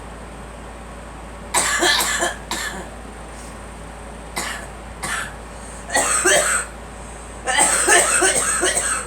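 A girl coughing in repeated bouts: a cluster of coughs about a second and a half in, two single coughs around four and a half and five seconds, another cluster at about six seconds, and a longer run of coughs near the end.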